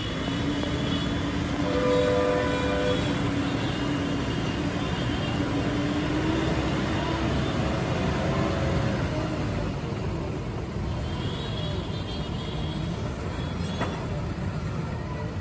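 Diesel engine of a JCB backhoe loader running steadily as it drives with a loaded front bucket. A held pitched tone that wavers slightly sounds over it through the first half, loudest about two seconds in, and fades out around eight seconds.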